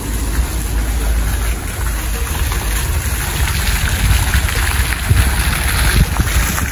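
Fountain jet splashing back down into its pool in a steady, even rush of falling water, over a low rumble.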